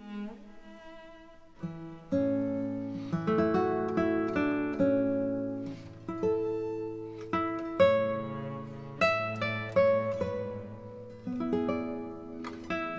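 Background music: plucked acoustic guitar playing a slow melody over chords.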